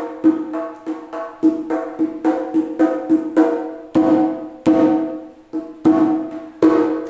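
Kendang jaranan (toples-style hand drum) struck with the hands, each stroke ringing on the same pitched note. Quick strokes at about three a second for the first four seconds, then slower, spaced strokes that ring out longer, the last fading near the end.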